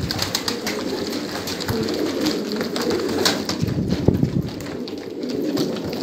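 Many pigeons cooing over one another, with scattered short clicks and rustles among them.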